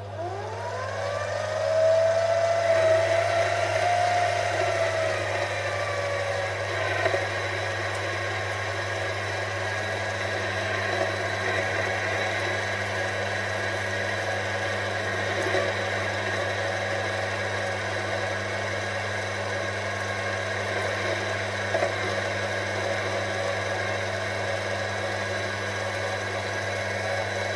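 Metal lathe motor starting up, its whine rising over the first two seconds, then running steadily with a constant hum while the tool takes a turning cut along a shaft, throwing stringy swarf.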